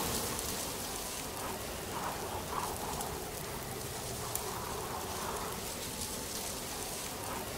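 Steady rain-like hiss of background noise, with a few faint murmurs.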